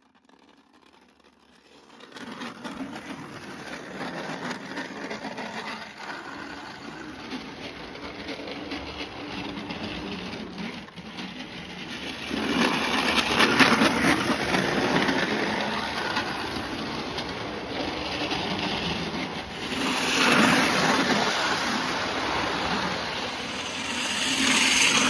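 Hornby model trains running on sectional track: a whirring, clattering run with small clicks from the wheels on the rails. It starts a couple of seconds in, grows louder about halfway through and swells twice more near the end as trains pass close.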